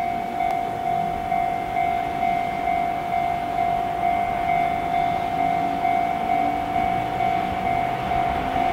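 JR Freight EF210 electric locomotive accelerating a container freight train: a steady high whine throughout, with a lower gear whine that rises in pitch in the second half.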